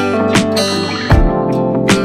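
Background music: acoustic guitar strumming over a steady beat.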